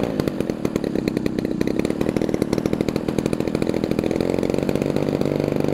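EME 60 single-cylinder two-stroke gasoline engine in a 1/3-scale Morane Saulnier AI model airplane, idling steadily with its propeller turning as it warms up just after starting.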